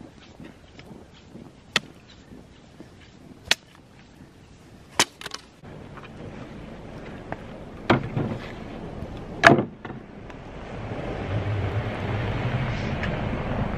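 A hatchet splitting kindling, a few sharp strikes of the blade into the wood. Then a pickup truck drives up on a snowy road, its engine and tyres getting louder over the last few seconds, with two louder knocks before it.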